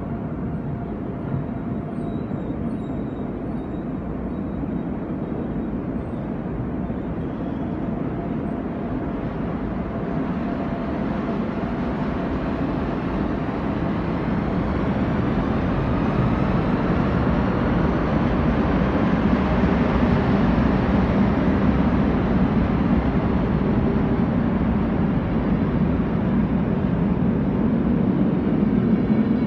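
SBB passenger train departing, its coaches rolling past on the rails. The rumble grows steadily louder as the train gathers speed, with a faint steady hum in the first few seconds.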